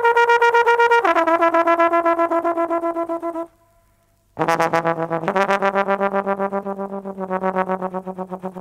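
Trombone playing long held notes with a fast, even pulse in loudness: a high note drops to a lower one about a second in, breaks off for about a second near the middle, then a low note comes in and is held.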